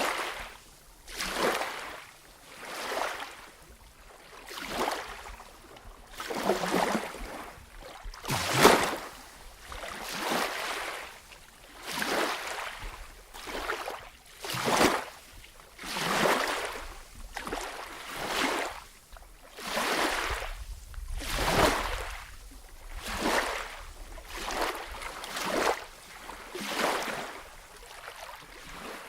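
Swimming strokes in water: an even rhythm of splashes, about one a second, as arms pull through and slap the surface.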